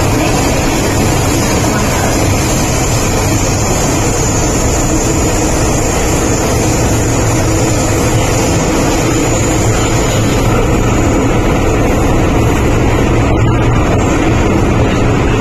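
Interior running noise of an MTR M-Train (Metro-Cammell electric multiple unit) under way: a loud, steady rumble of wheels on track and the car's running gear.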